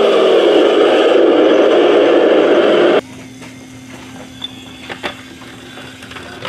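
Radio-controlled toy tank running with a loud, steady mechanical whir that cuts off suddenly about three seconds in. After that only a faint steady hum with a few light clicks remains.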